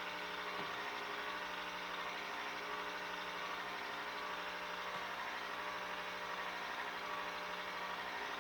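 Pampered Chef electric ice cream maker running steadily, its motor churning the mix in the freezer bowl: an even hum.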